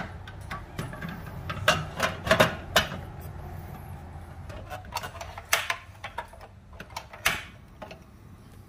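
Plastic and metal clicks and clunks of a portable butane cassette stove being loaded: the canister seated in its holder, the cover shut and the pot supports set, with a cluster of sharp knocks about two seconds in and more around five and seven seconds.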